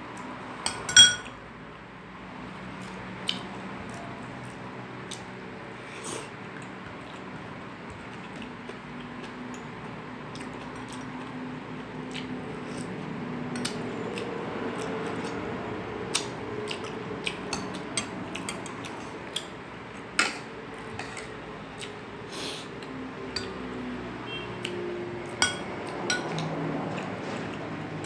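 Eating sounds: a metal spoon clinking against a glass soup bowl and a plate, with scattered light clicks throughout. The sharpest clink rings briefly about a second in.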